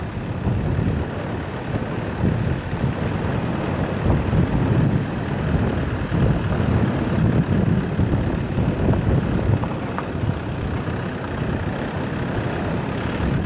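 Vehicle driving over a rough, rutted dirt road: a continuous low rumble of engine and tyres, its loudness rising and falling unevenly with the bumpy surface.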